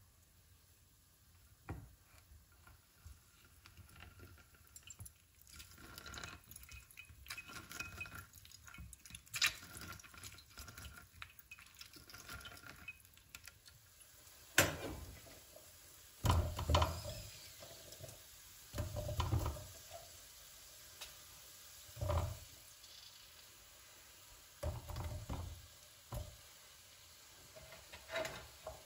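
Dishes and kitchen utensils being handled: light clinks and rattles in the first half, then about six separate dull knocks a couple of seconds apart, as things are set down on a counter.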